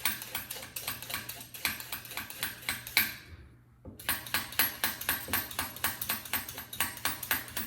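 Vegetable peeler scraping down a raw carrot in quick, even strokes, about four or five a second, with a short pause about three and a half seconds in.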